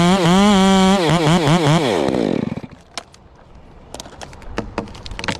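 Stihl chainsaw running at high revs, its pitch wavering as it cuts. About a second in the engine comes off the throttle and winds down, fading out by about two and a half seconds. Scattered faint clicks and cracks follow.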